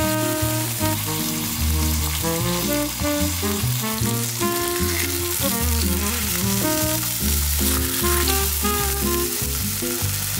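Two beef steaks sizzling steadily as they fry in a pan, under background music with a bass line.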